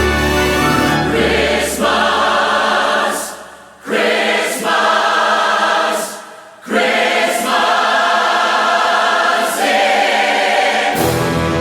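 Large choir singing a Christmas song in sustained chords, with little low bass beneath. The sound dies away briefly twice between phrases, about four and six and a half seconds in, before the voices come back in.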